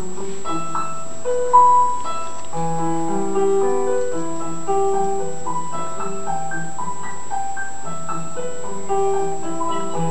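Piano music from a television's speakers: a gentle melody of single held notes over sustained low notes.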